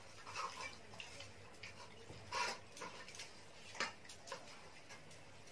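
Scattered light clicks and clinks of several people eating rice by hand from stainless steel plates, with sharper taps about two and a half and four seconds in.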